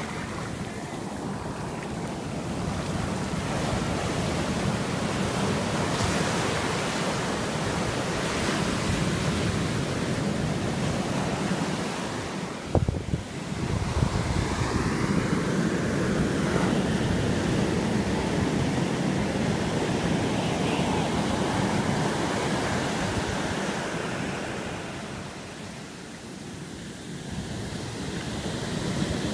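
Pacific surf breaking and its foamy wash rushing up over the sand in a continuous loud hiss, with a brief thump about halfway through and a short dip in level near the end.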